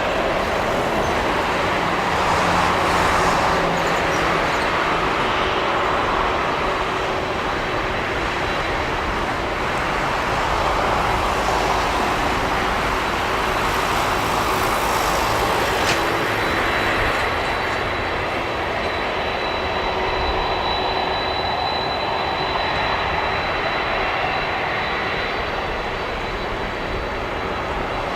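The four jet engines of a Boeing 747-400F freighter running at high power for takeoff: a loud, steady roar with a thin high whine that grows stronger in the second half.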